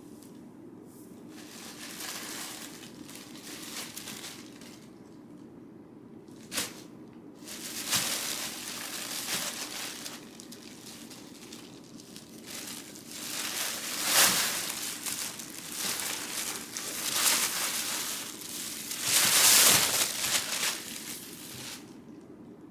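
Thin plastic shopping bag crinkling and rustling in irregular bursts as a cat climbs into it and hands handle it, loudest about 14 and 19 seconds in.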